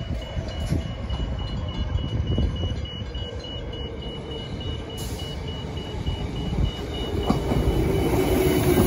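Level crossing warning bell sounding as a high, evenly repeated beep, over the low rumble of a Transperth electric multiple-unit train approaching, which grows louder over the last couple of seconds.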